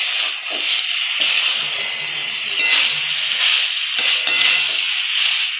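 Fried cauliflower in sauce sizzling in a hot metal kadai while a spatula stirs and scrapes through it, a steady hiss with occasional clinks of metal on metal.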